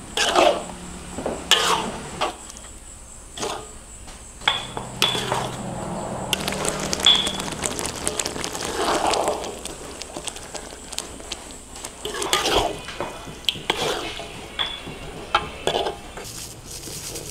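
Cooking sounds: a metal utensil clinking and scraping against cookware in an irregular string of short strikes, some with a brief metallic ring.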